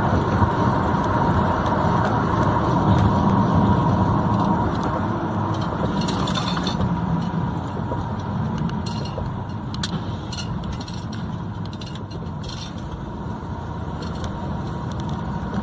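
Steady road and engine noise of a moving car heard from inside the cabin, with a thin steady whine and a scattering of light clicks and rattles in the middle stretch.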